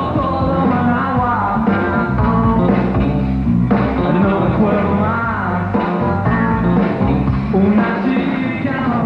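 Rock song with a male lead vocal singing over electric band backing of bass and drums. The sound is dull, with the treble cut off.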